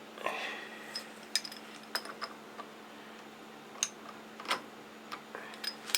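Light metallic clicks and clinks, several with a short ringing tone, as small metal workpieces and parallels are handled and set in a milling machine vise, over a faint steady hum.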